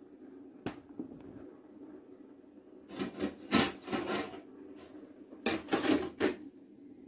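Kitchen handling sounds: a single click about a second in, then two short bouts of knocks and rubbing, about three and five and a half seconds in, over a faint steady low hum.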